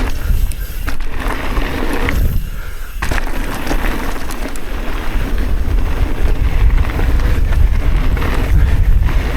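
Mountain bike ridden fast down a dirt trail: steady trail and bike rattle over a heavy wind rumble on the microphone. The trail noise drops out for about half a second, two and a half seconds in, while the rumble carries on.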